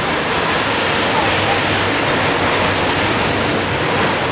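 Double-stack container freight train rolling past, a steady noise of the wagons' wheels running on the rails.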